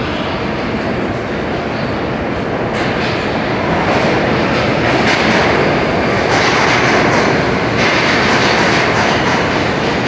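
New York City subway train running through the station on the far track, its sound growing louder about four seconds in.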